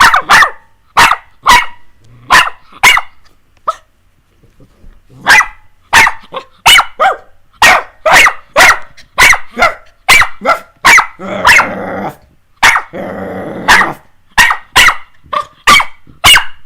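Puppies barking in quick, sharp yaps, about two a second, with a lull about three to five seconds in. Around the middle of the later run come two longer, rougher sounds, growls in play.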